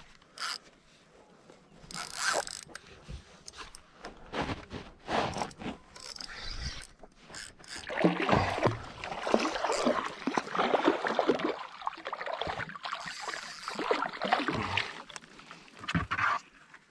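Fishing reel being cranked, with knocks and rattling against a small boat's hull, as a jack is reeled in and landed. The clattering turns dense and busy from about eight seconds in for several seconds.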